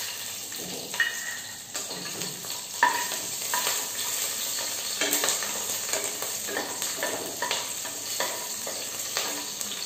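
Chopped ginger, green chillies and garlic sizzling in hot oil in an aluminium pressure cooker, stirred with a wooden spatula that scrapes and knocks against the metal base.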